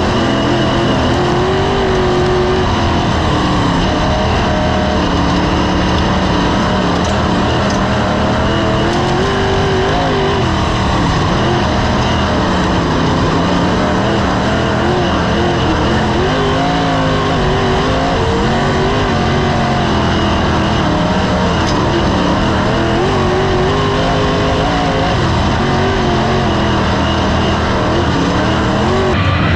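Sprint car's V8 engine at full race pace, heard on board: the engine note climbs down the straights and drops off into each turn, rising and falling about every six or seven seconds, two cycles to a lap.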